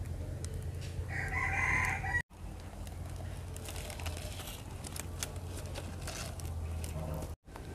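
A rooster crowing once, about a second long, about a second in, over a steady low hum with scattered faint clicks.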